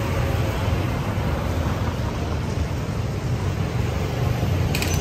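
City street traffic, mostly motorbikes riding past: a steady wash of engine and road noise with a strong low rumble.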